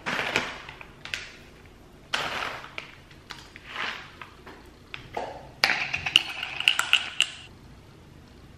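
Crinkling of a plastic snack pouch in several short bursts as sprouted seeds are shaken out over salads. This is followed, about five and a half seconds in, by a quick run of sharp clinks with a ringing tone from a glass jar of dressing being handled.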